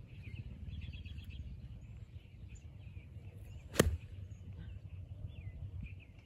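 A golf iron striking a rubber bouncy ball off the turf on a full swing: one sharp crack a little more than halfway through. Small birds chirp in the background throughout.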